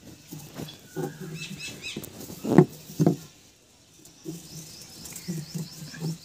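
Small birds chirping in short runs, over irregular low rustles and knocks as pieces of coconut coir are pressed into a wire frame. Two louder knocks come about two and a half and three seconds in.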